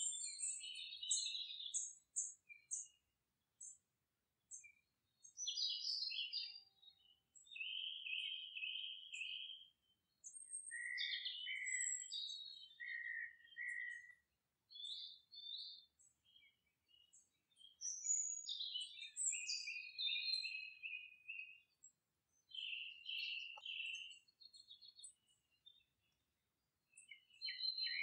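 Birds chirping and singing in short, high warbling phrases, several calls overlapping, with brief pauses between the spells.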